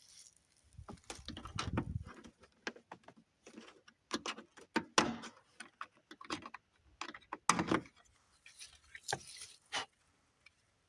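Irregular clicks, taps and rattles of hand work on a pickup's door panel and tools, with a few louder knocks about five and seven and a half seconds in.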